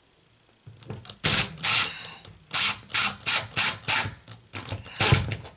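Impact driver driving a drywall screw through a drywall patch into a wooden paint-stick backing, hammering in about eight short trigger bursts starting about a second in, the last and loudest near the end.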